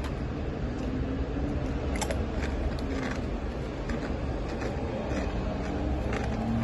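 Fried chicken skin crunching in a series of short, sharp bites, over a steady low rumble.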